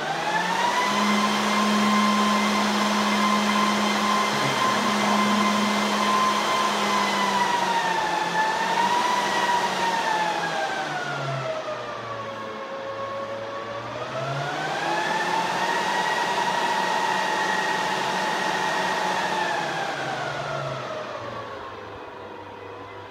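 Dell PowerEdge R710 server's 60 mm Nidec UltraFlo cooling fans spinning up at power-on: a loud whine that jumps up at the start and holds, sags and falls about halfway through, climbs back up, then ramps down near the end as the server runs its power-on self-test.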